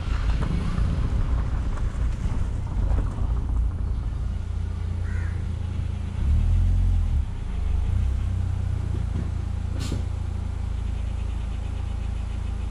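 Hero Honda motorcycle's small single-cylinder engine running at low speed and then idling, a steady low rumble. It swells louder for about a second, six seconds in. A single sharp click comes near the end.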